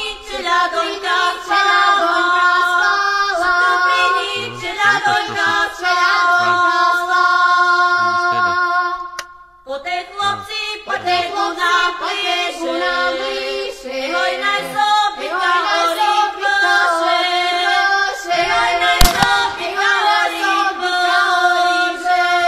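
Slovak folk song sung by women's voices, breaking off briefly about nine seconds in. Near the end comes one sharp crack, louder than the singing.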